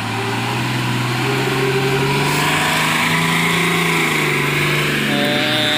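A Tata log truck's diesel engine running as the truck crawls down a steep muddy track under its log load, its pitch wavering a little and growing louder as it approaches. A brief higher-pitched tone sounds near the end.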